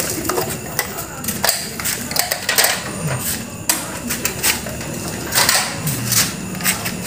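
Irregular clicks, taps and light clanks of hands and tools on the sheet-metal casing and parts of an inverter air-conditioner's outdoor unit as it is being taken apart.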